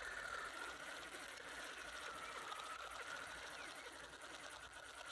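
Large fixed-spool fishing reel being cranked steadily, a faint whirring of its gears with a fine rapid ticking, as fluorocarbon line is wound back onto the spool to take out line twist. It grows a little fainter toward the end.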